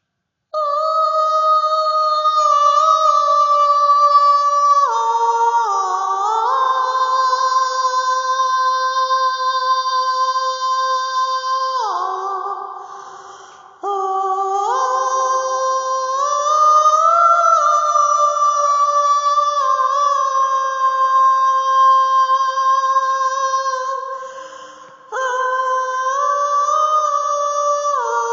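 Wordless a cappella vocal chords: several voices hold sustained chords together, gliding to a new chord every few seconds, with no instruments. The sound fades out around twelve seconds and again around twenty-four seconds, each time followed by a fresh chord.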